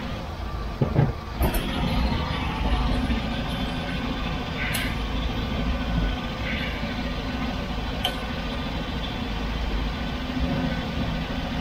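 Boat's V8 454 engine idling steadily, with a few light metallic clicks as the carburettor throttle linkage is worked by hand.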